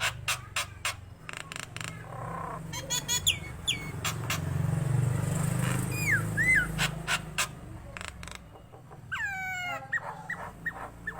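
Nias hill myna calling: a string of sharp clicks and loud whistled notes that swoop down and back up, with a tumbling run of falling notes near the end. A low steady rumble swells underneath in the middle.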